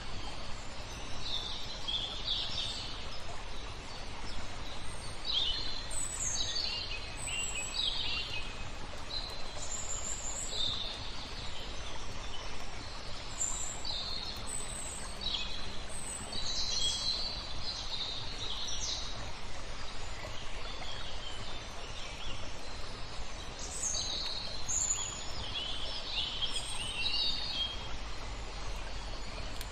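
Small songbirds chirping in clusters of short, high calls over a steady background rush, which is typical of flowing water. The birds fall quiet for a few seconds past the middle, then start up again.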